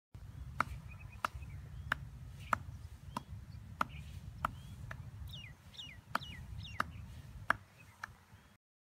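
Sharp clicks repeating evenly, about three every two seconds, over a low rumble. Several short bird chirps falling in pitch come in about two-thirds of the way through. The sound cuts off abruptly near the end.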